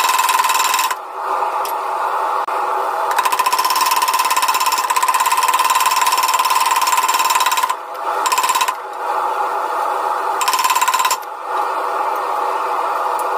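A power hammer striking in rapid-fire bursts, one burst running about four and a half seconds and several shorter ones, with a steady ringing tone through each run. A steady rushing noise continues underneath in the pauses.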